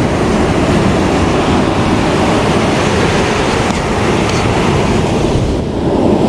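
Waves breaking on a beach and wind buffeting the microphone, heard as a steady, loud rushing noise that dips briefly near the end.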